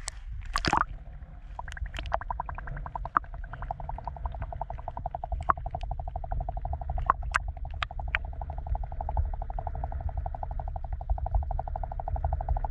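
A camera plunging into lake water with a short splash, then muffled underwater sound: a low rumble and a fast, even pulsing buzz.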